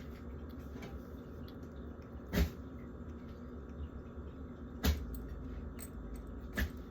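Three sharp knocks and clunks of food containers being handled and set down while a fridge is cleared out, spaced a couple of seconds apart, over a steady low hum.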